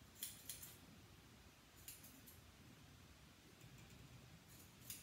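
Scissors snipping through hair with quiet, crisp snips: two near the start, two more about two seconds in and one near the end.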